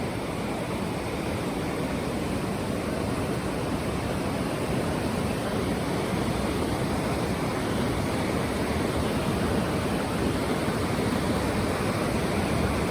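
Steady rushing of river water around a raft, an even noise without breaks.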